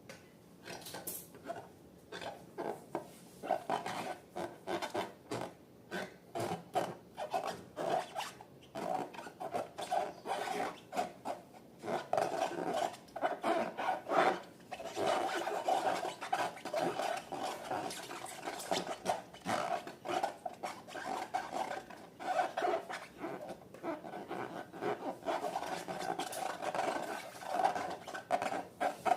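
Slime being mixed and scraped in a container: a rapid, irregular run of sticky clicks, squelches and scraping strokes, several a second.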